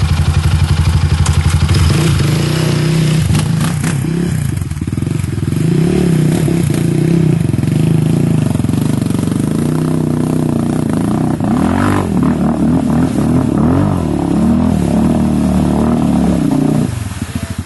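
Sport quad's single-cylinder engine under hard throttle, revving up and down repeatedly. The engine note drops away near the end.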